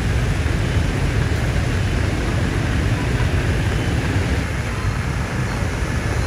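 Steady outdoor noise of heavy rain and traffic driving through a flooded street, with a deep constant rumble underneath.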